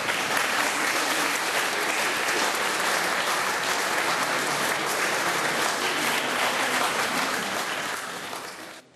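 Church congregation applauding, a dense steady clapping that fades and then cuts off abruptly near the end.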